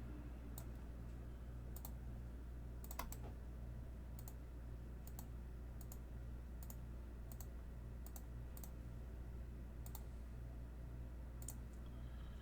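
Faint, light clicks scattered irregularly, roughly one a second and some in quick pairs, over a steady low hum.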